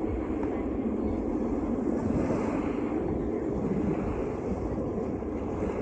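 Storm wind blowing across the microphone: a steady, uneven rumbling noise with no break.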